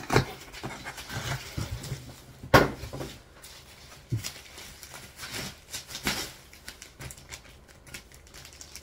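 Handling noises from packaging: several sharp knocks and clicks with rustling in between as a shipping container holding a graded comic slab is handled and opened. The loudest knock comes about two and a half seconds in.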